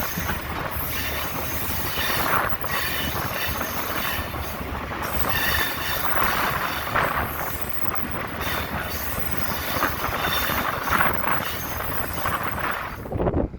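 Railway cars rolling past on steel rails, a continuous rumbling clatter with thin high squealing tones from the wheels. It cuts off suddenly near the end.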